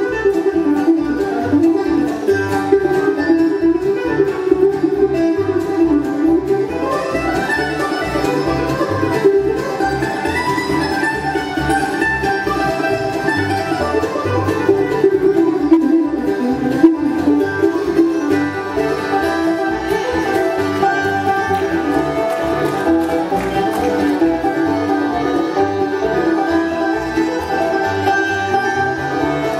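Bluegrass band playing live with no singing: fiddle, banjo and mandolin over upright bass and acoustic guitar. Sliding fiddle lines rise and fall around the middle.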